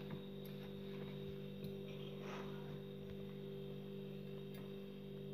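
A steady low electrical hum, with a few faint soft scrapes and taps from hands kneading rice-flour dough in a steel bowl.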